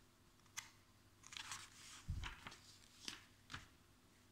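Glossy magazine pages rustling and crackling faintly as they are turned and smoothed flat by hand, with a soft knock against the table about two seconds in.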